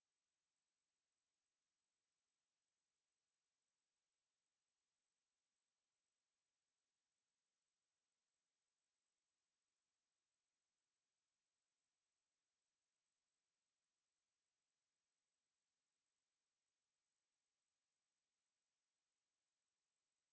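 A steady, high-pitched pure sine-wave test tone at 8457 Hz, held at one constant pitch and level.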